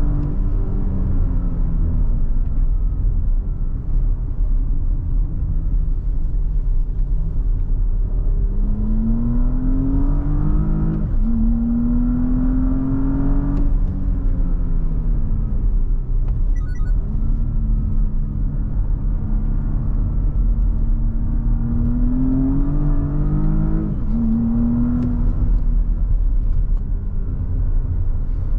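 Porsche Cayenne Coupe's 3.0-litre V6 engine pulling under way over a steady low road rumble. Its note climbs and then drops sharply twice as the gearbox shifts up, and in between it eases off and cruises at an even pitch.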